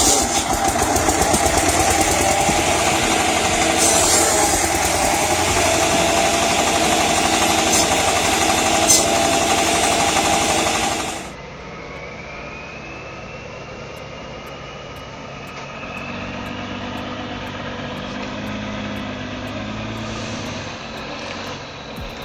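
A homemade sawmill, a circular saw blade driven by a tractor engine, runs loud with a steady tone. About halfway through it cuts off abruptly and a much quieter vehicle engine follows, with a faint rising whine.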